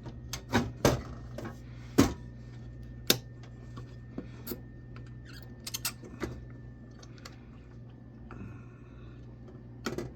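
Clicks and clinks of small hard computer parts being handled on a stripped motherboard, with four sharp clacks in the first three seconds and lighter taps after.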